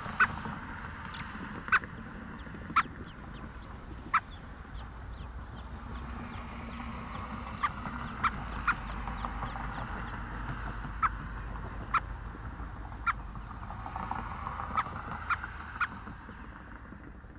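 About a dozen short, sharp clicks or chucks at irregular intervals over a steady hiss and low hum. They are picked up by a webcam microphone right at an American robin nest as the adult feeds the nestlings.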